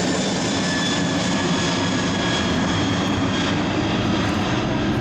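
A Boeing 747-400 freighter's four jet engines at takeoff power, heard as a loud, steady rush of jet noise. Thin high whining tones run through it and sink slightly in pitch.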